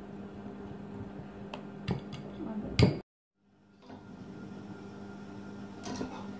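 A few clinks and knocks of a utensil and bowl against a glass mixing bowl as batter is mixed and flour is added, the loudest about three seconds in, over a steady low hum. The sound cuts out completely for about a second just after the loudest knock.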